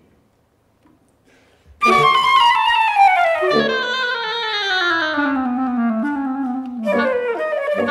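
Wind quintet of flute, oboe, clarinet, horn and bassoon coming in after a brief hush, about two seconds in, with a long descending line: the voices fall together for about five seconds. A new, bouncier phrase starts near the end.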